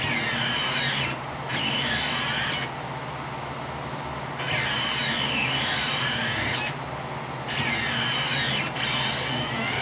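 Stepper motors of a Rostock MAX delta 3D printer whining as its effector is jogged around. There are about five short moves with brief pauses between; in each, the whine rises and falls in pitch as the motors speed up and slow down. A steady low hum runs underneath.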